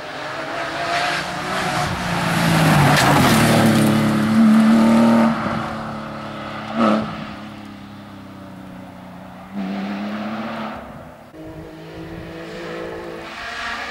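Porsche 911 rally car's flat-six engine revving hard as it passes, loudest about four to five seconds in, with one sharp bang near seven seconds. It then fades, with further bursts of throttle as it pulls away up the stage.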